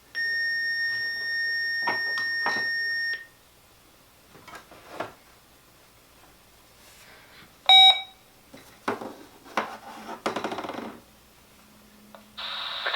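A weather alert radio's alarm tone sounds steadily for about three seconds, then cuts off. A short, louder beep follows about eight seconds in, among clicks and rattling, and a brief buzz comes near the end.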